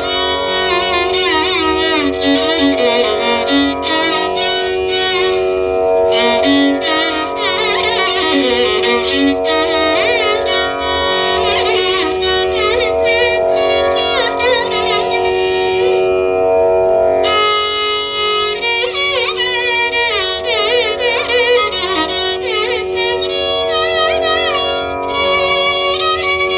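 Carnatic violin playing a melody in raga Bilahari, full of sliding, wavering ornaments, over a steady drone. The line breaks off briefly past the middle and comes back with a fresh stroke.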